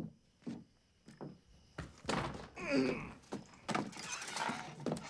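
Slow, heavy footsteps knocking on boards, then a door creaking open about two seconds in, followed by a run of thuds and clatter.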